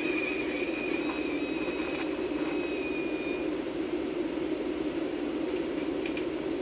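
TIG welding arc brazing brass onto steel at a low 65 amps: a steady hum over a hiss, with a faint high whine during the first half.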